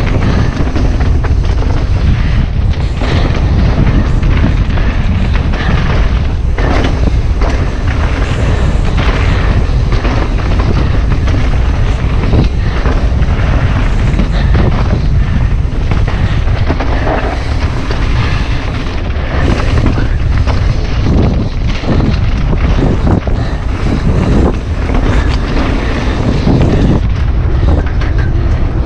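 Wind buffeting the microphone of a camera on a mountain bike moving fast down a dirt trail, with frequent knocks and rattles from the bike over rough ground.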